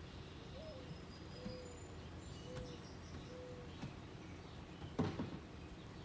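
A 1.5-ton Mitsubishi Electric ductless mini-split outdoor unit running with a steady low hum. A bird coos over it, one rising note followed by three held low notes about a second apart. There is a sharp knock about five seconds in.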